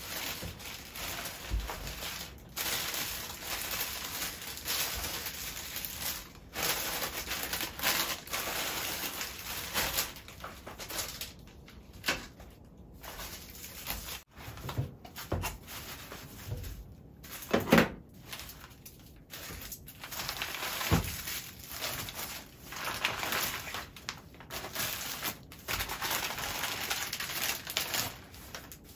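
Plastic grocery bags and produce wrappers rustling and crinkling as groceries are unpacked by hand, with an occasional knock of an item being set down, the loudest about two-thirds of the way through.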